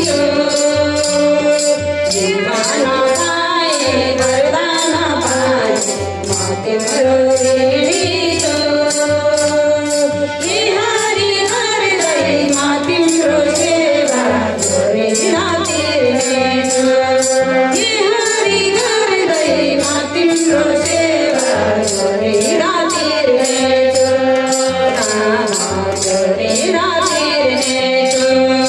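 A group of women singing a Hindu bhajan together, a melody with held and gliding notes, over a hand drum and a steady, quick percussive beat.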